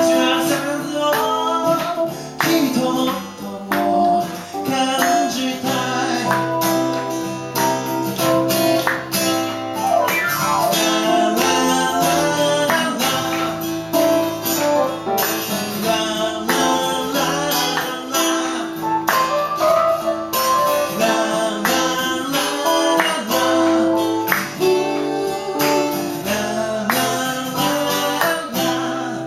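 Acoustic guitar playing under a singing voice: a song performed live.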